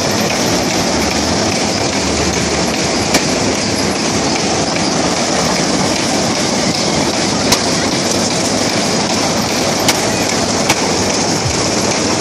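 A spinning carnival ride's train of cars running fast around its circular track: a steady, loud rushing rumble of wheels on the track, with a few sharp clicks.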